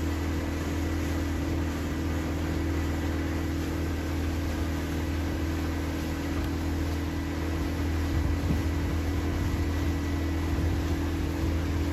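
Small boat's engine running steadily at low, no-wake speed: a constant low drone with the hiss of water moving along the hull.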